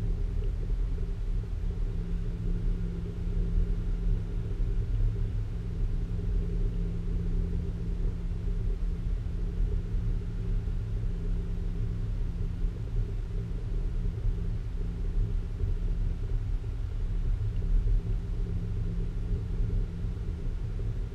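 Steady low rumble with a hum on a few held low notes, heard inside a moving cable car cabin as it runs along its cable.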